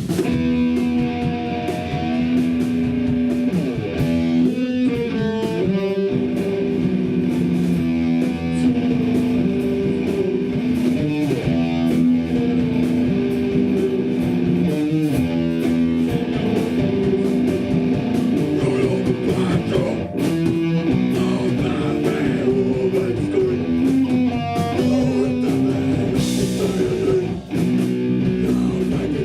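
A live hardcore punk band playing loud distorted electric guitar with bass and drums, mostly an instrumental stretch with little or no singing.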